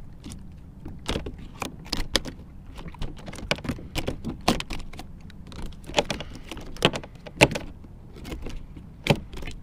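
Irregular knocks and clatters on a plastic fishing kayak as a hooked sheepshead is hoisted aboard and thrashes against the hull and gear, with a steady low rumble of wind on the microphone.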